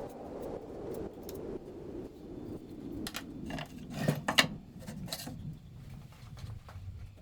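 Small hand tools or metal parts being handled: a scatter of light clicks and knocks, most of them between about three and five and a half seconds in, over faint rubbing.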